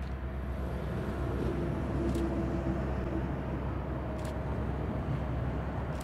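Canadian Pacific diesel-electric locomotives, CP 7016 leading, running under power as they pull a freight train slowly past: a steady low engine rumble with a faint steady tone, and a couple of faint clicks.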